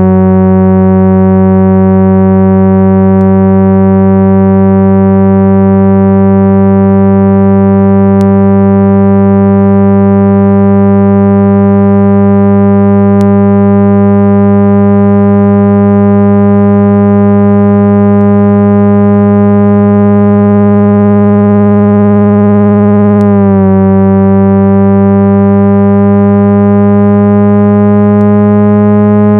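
Loud, continuous synthesized speaker-cleaning tone, billed as 396 Hz, played to vibrate water and dust out of a phone speaker. It is a steady low hum with many overtones, the upper ones creeping slowly upward, and a brief hiccup in the tone about 23 seconds in.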